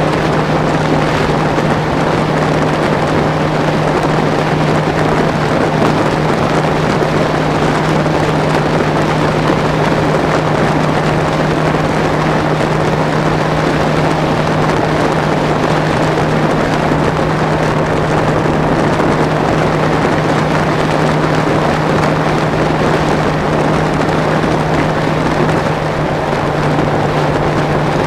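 Bass boat's outboard motor running steadily at high speed, a constant engine drone under a rush of wind and water.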